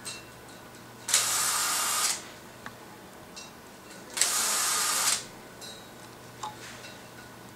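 Cordless drill driver backing screws out of a heater's support tube: two short runs of about a second each, with a few light clicks between them.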